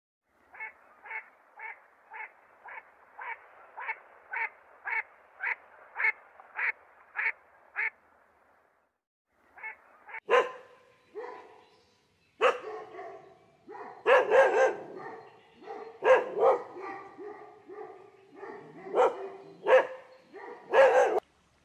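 An animal calling: a regular run of short calls, about two a second, then after a short pause louder, irregular calls of the same pitch.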